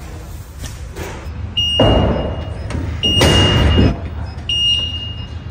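A small electric pickup's warning beeper sounding over and over: three even beeps about a second and a half apart. Two louder bursts of rumbling noise come between and under the first beeps.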